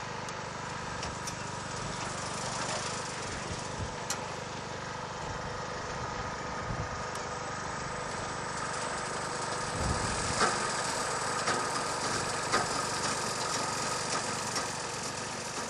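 Small engine running steadily, most likely the motor of a kite-line winch, with a few short clicks.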